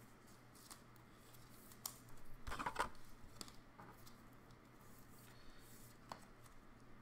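Faint rustling and small clicks of trading cards being handled and slid into clear plastic sleeves and rigid toploaders. The loudest rustle comes about two and a half seconds in, over a faint steady low hum.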